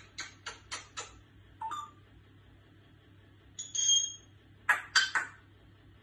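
African grey parrot sneezing and clicking: a quick run of five sharp clicks in the first second, a short whistle near the middle, then three sharp sneezes in quick succession, the loudest sounds here.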